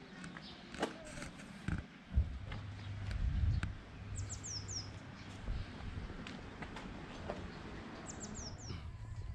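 A small bird calling a short phrase of four quick, high, falling notes, repeated about every four seconds, over a low outdoor rumble. A sharp thump comes about two seconds in.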